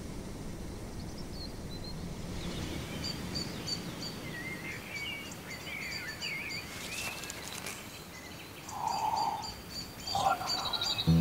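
Natural outdoor ambience: songbirds singing, warbling phrases and repeated short high chirps, over a low steady rush. Two short, lower-pitched calls come near the end.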